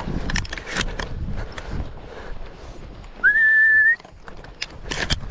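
A single whistle to the bird dogs: one steady high note with a short upward slide at its start, held for under a second about three seconds in. Crackling and rustling of movement through brush runs around it.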